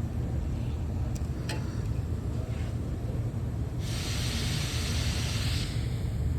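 A burst of compressed-air hiss from an air tool, lasting about two seconds and starting about four seconds in, over a steady low hum.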